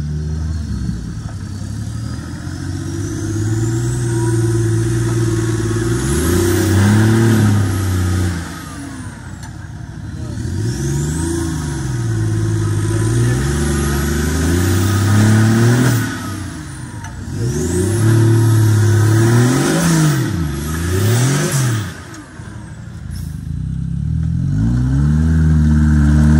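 Off-road 4x4 engines revving hard again and again, the pitch repeatedly rising and falling as the vehicles work through a steep muddy gully.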